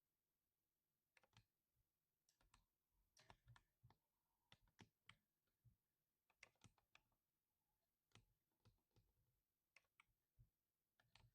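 Faint typing on a mechanical keyboard with lubed linear switches: irregular keystrokes, some in quick pairs, starting about a second in.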